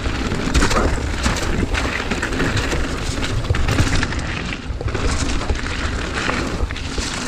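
Mountain bike descending a wet, stony singletrack: tyres rolling over gravel with the bike rattling over many small bumps, and a low wind rumble buffeting the chest-mounted camera's microphone.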